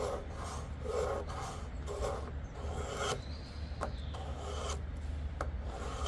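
A small pocket-knife blade is drawn through a cheap pull-through knife sharpener, rasping about four strokes in the first three seconds, then lighter scraping with a couple of clicks. The sharpener bites easily into the blade's fairly soft stainless steel, which the owner takes for 7Cr17 or 5Cr15. He calls the sound brutal for strokes made without pressure.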